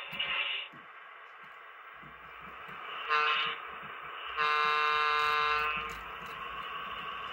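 Model diesel locomotive's sound-system horn sounding a short toot and then a long blast, over a low engine rumble.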